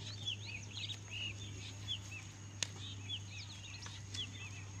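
Many small birds chirping, a rapid scatter of short arching calls, over a steady low hum, with one sharp click about halfway through.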